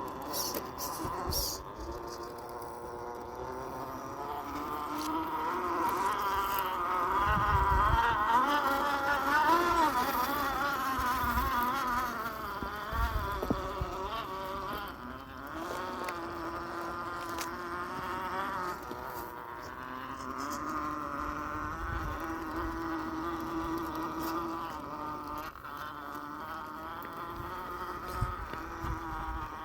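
Electric motor and gear drivetrain of an Axial SCX10 II RC rock crawler whining as it crawls, the pitch wavering constantly with throttle and load and rising in volume for a few seconds in the first half. A few dull low thumps.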